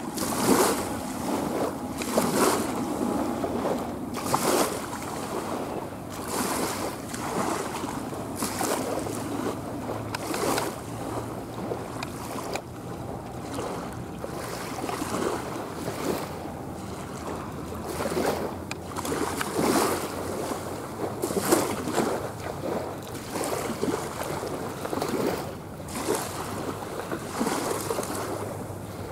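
Jet engine roar from an Airbus A320neo's CFM LEAP-1A turbofans climbing out overhead, a steady rushing noise mixed with wind buffeting the microphone in surges about every two seconds.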